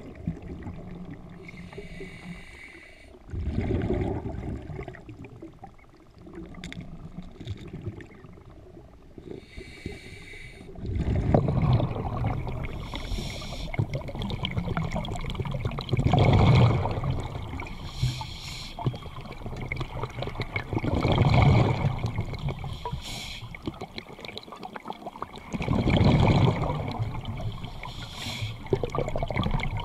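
Scuba diver breathing through a regulator underwater: a hiss on each inhale and a bubbling rush on each exhale, roughly every five seconds. The breaths are faint at first and louder from about eleven seconds in.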